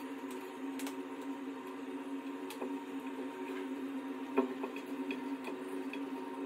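Screwdriver turning the seat-hinge fixing screw on a ceramic toilet: scattered light ticks and clicks, with one sharper click about four and a half seconds in, over a steady hum.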